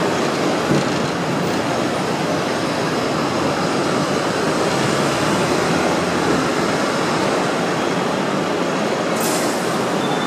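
Hong Kong double-decker electric tram running along its street track, heard from aboard: a steady rumble of steel wheels on the rails, with a brief sharp high sound near the end.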